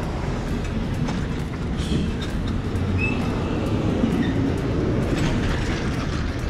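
Semi truck's diesel engine running at low speed, a steady low rumble with scattered clanks and rattles from the rig as it moves. A short high squeal about three seconds in.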